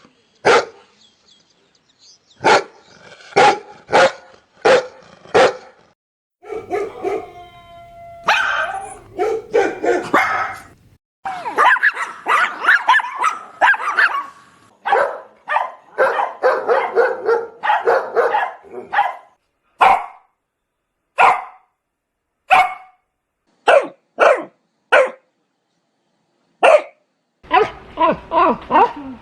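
Dogs barking loudly, several different dogs one after another. First come sharp single barks about a second apart, then long stretches of rapid, overlapping barking, then spaced single barks, and dense barking again near the end.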